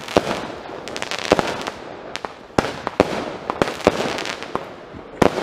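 Cutting Edge 'Joyride' 200-gram consumer firework cake firing: a rapid, irregular string of sharp reports, several a second, over a continuous noisy haze.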